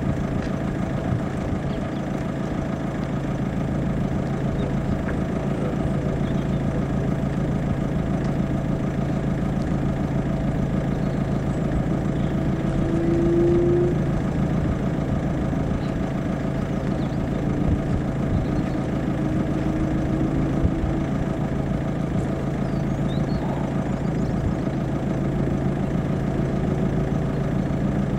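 Steady engine hum at idle, with a short higher whine rising about halfway through.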